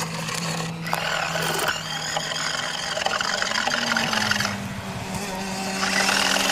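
Remote-control toy car running: a steady electric motor hum that shifts pitch slightly, with stretches of wheels scraping over the ground.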